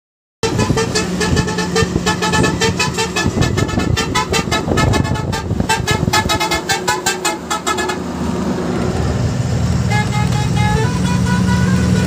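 A truck's musical horn playing a tune as a quick run of short pitched notes over the steady low running of the engine; in the last few seconds the notes come fewer and are held longer.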